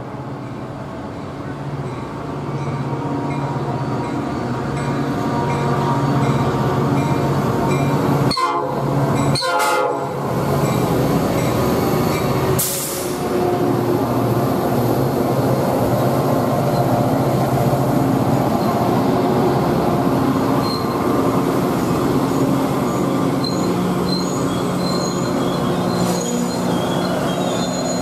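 Metra commuter train of stainless-steel bilevel gallery cars coming through the station: the horn sounds and the train grows louder as it arrives. The cars then roll past steadily, with a brief hiss about halfway through and faint high wheel squeal near the end.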